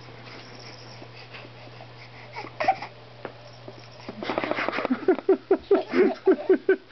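Baby making a quick run of short, fussy cries, about three to four a second, starting about four seconds in, while a golden retriever noses and licks at his face. Before that there are only faint, soft sounds.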